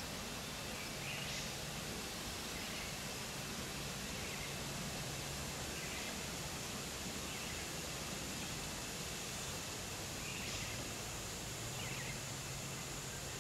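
Outdoor bush ambience: a steady background hiss with a faint steady high insect drone, and several short bird chirps spread through it.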